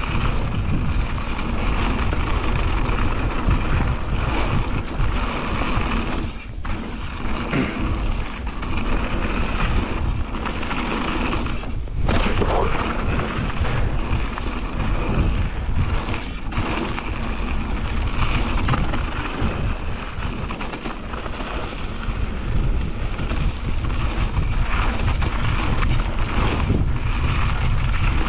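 Mountain bike descending a dirt flow trail at speed: knobby tyres rolling over the surface, the bike rattling, and wind buffeting the GoPro's microphone. The rolling noise drops away briefly a few times.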